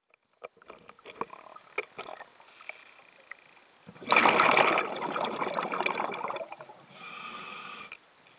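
Scuba diver breathing through a regulator, heard underwater: a loud rush of exhaled bubbles about halfway through, then a shorter, steadier hissing inhalation near the end. Scattered sharp clicks come before the exhalation.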